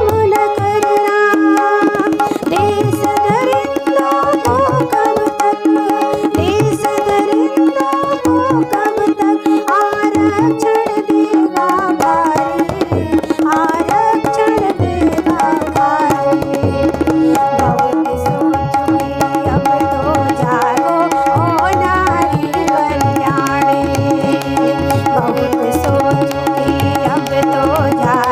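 A woman sings an Indian folk song to harmonium and tabla. The harmonium holds steady reed notes under the wavering voice, and the tabla keeps a running rhythm whose low bass strokes grow denser from about halfway.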